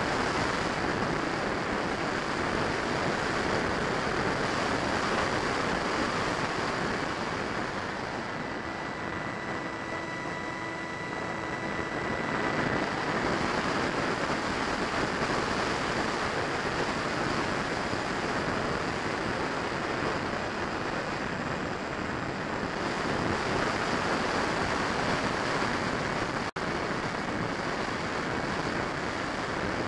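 Steady rush of air and ducted-fan noise on the onboard camera of a Freewing F-35 70 mm electric ducted-fan jet in flight. Between about 8 and 13 seconds in, the rush eases a little and a faint steady whine shows through.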